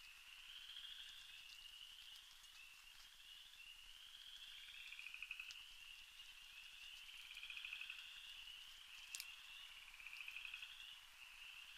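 Faint night chorus of calling animals: many overlapping high trills, each about a second long, following one another without pause, with a few light clicks among them.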